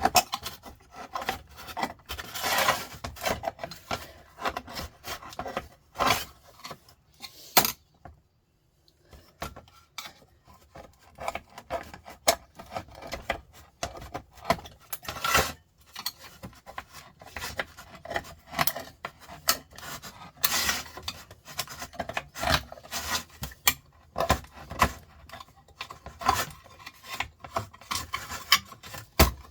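Irregular metal scraping, rasping and clinking as the aluminium parts of a sandwich maker are worked free of their heat-resistant powder, with a brief pause about eight seconds in.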